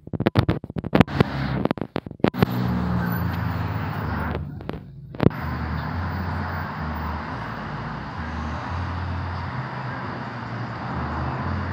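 A run of knocks and rustles as the phone is handled and raised. Then a steady road-traffic and car noise with a low hum, with a brief dip and a single click about five seconds in.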